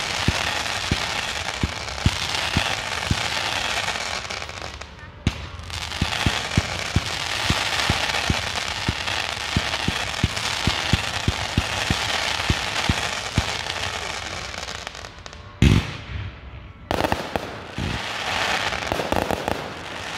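Fireworks: a continuous hissing spark shower with rapid sharp crackling pops, easing briefly about a quarter of the way in, and one loud bang about three-quarters of the way through, followed by more hissing and crackling.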